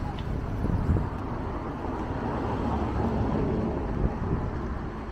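Road traffic noise with a vehicle going by, its sound swelling about two seconds in and fading near the end.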